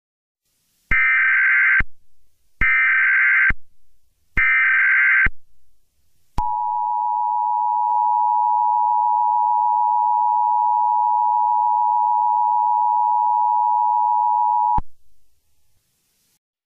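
Emergency Alert System broadcast signal: three short buzzing SAME data header bursts, each about a second long, followed by the steady attention tone held for about eight seconds before it cuts off.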